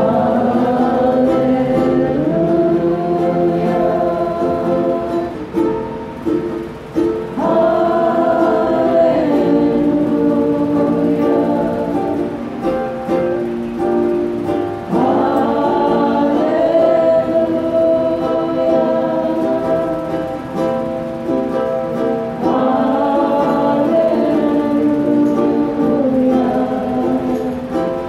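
Church worship team singing a slow hymn together in long held notes, phrase by phrase, with a strummed guitar accompanying.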